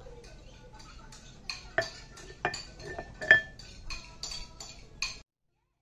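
Sliced strawberries tipped from a white ceramic ramekin into a glass dish: a run of sharp clinks and taps of ceramic and fruit against glass, which cuts off abruptly near the end.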